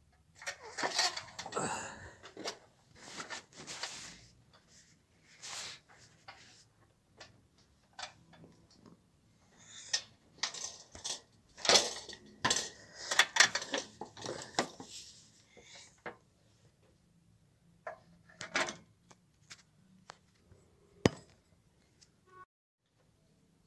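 Handling noise from a tripod projector screen and its white case: irregular clicks, clinks and knocks of metal and plastic parts as the case, its wire hook and the stand's clamp are handled, busiest in the middle and ending with one sharp click.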